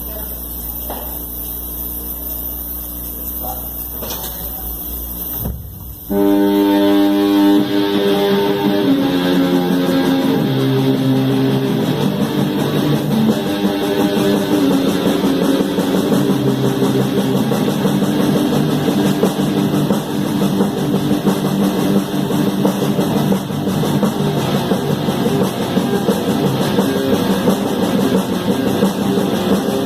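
A steady low hum for about six seconds, then a rock band suddenly starts playing loud, led by electric guitar chords, and keeps going.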